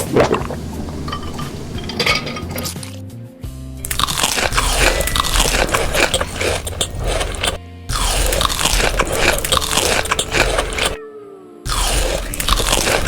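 Crunchy food being bitten and chewed close to the microphone, a dense crackling crunch that cuts off suddenly twice, over background music.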